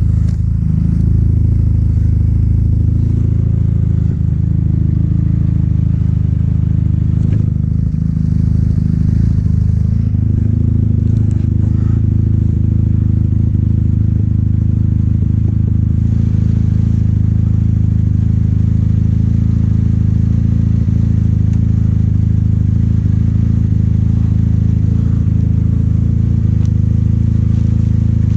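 Snowmobile engine running steadily at an even pace, a loud low drone that holds constant.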